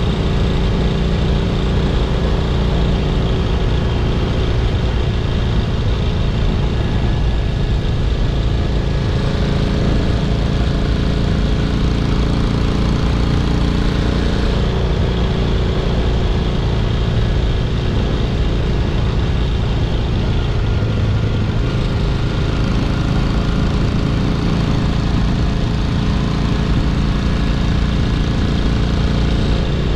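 A 1964 Honda CA77 305 Dream's 305cc four-stroke parallel-twin engine running steadily as the motorcycle cruises along.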